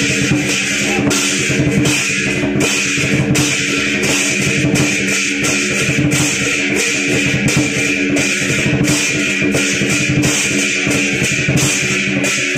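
Music with guitar, bass and drums keeping a steady beat.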